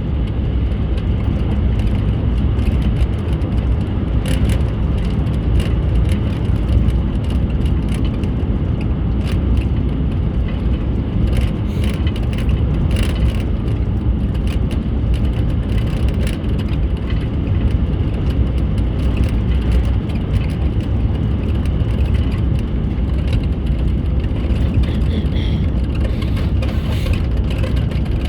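Steady low rumble of a car driving at a constant speed: road and engine noise heard from inside the cabin.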